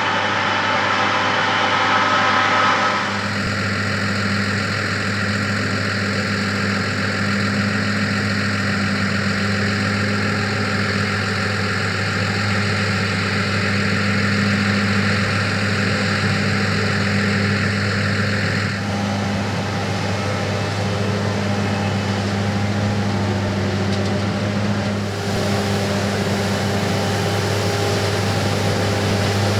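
John Deere S680i combine harvester running steadily at work in a rice field: a constant low engine hum under a machinery rush. The higher noise changes abruptly about 3 seconds in and again about 19 seconds in.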